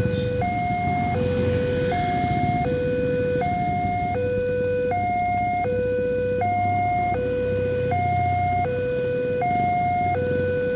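Railway level-crossing warning siren sounding a steady two-tone hi-lo alternation, switching pitch roughly every three-quarters of a second, over a low rumble.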